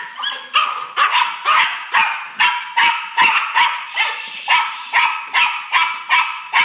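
Excited dog barking over and over, about two barks a second, with a high whine held between the barks.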